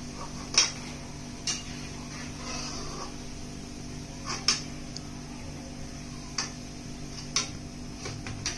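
Metal kitchen utensils clinking against a cooking pan now and then, about seven sharp clicks spread out, the strongest about half a second in, over a steady low hum.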